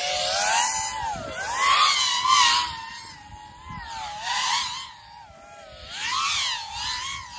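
Racing FPV quadcopter's T-Motor BMS Raptor V2 brushless motors whining under hard throttle, the pitch swinging up and down with repeated throttle surges as the quad flips and carves; loudest about two seconds in.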